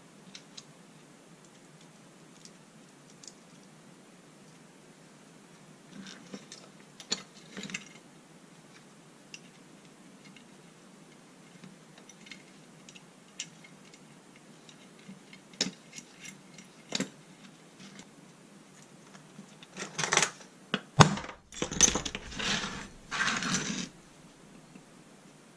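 Small metal parts being handled: scattered light clicks and clinks of a ball bearing, bolt and washers as a belt-sander roller is fitted onto its bracket. Near the end comes a louder run of metal knocks and clatter.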